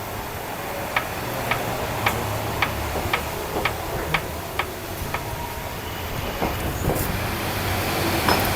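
Car engine running with a sharp, regular tick about twice a second, lasting a few seconds, then a couple of scattered knocks: the strange noise the engine is making.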